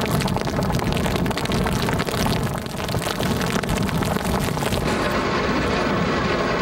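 Hurricane wind and driving rain hitting the microphone, with heavy surf breaking: a steady, dense storm noise.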